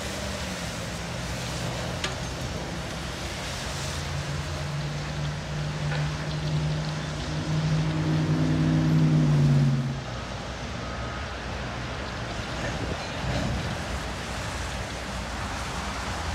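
A freight train's last hopper cars rolling away along the track, under a steady wash of road traffic and wind noise. A low engine hum swells through the middle and cuts off suddenly about ten seconds in.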